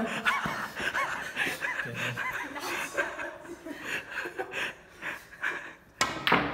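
People snickering and giggling while a shot is lined up on a pool table. About six seconds in, a single sharp billiard click as the shot is played.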